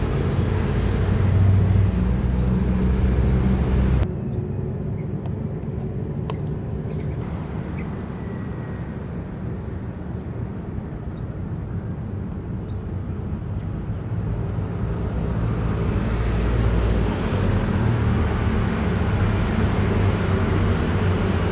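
Outdoor background noise: a steady low rumble that turns quieter and duller abruptly about four seconds in, with a few faint clicks, then fills out again near the end.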